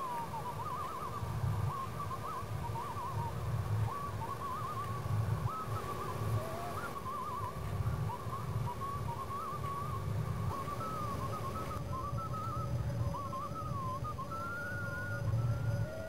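Background music: a single high, wavering whistle-like melody with fast trills, over a held drone and a low pulsing bass.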